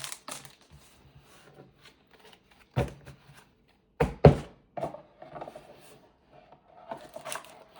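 Pokémon booster packs and cards being handled: soft rustling and a few sharp taps, the loudest pair about four seconds in.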